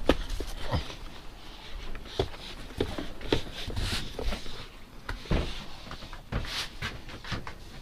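Footsteps with scattered light knocks, scuffs and scrapes as a thin sheet of board is carried and handled.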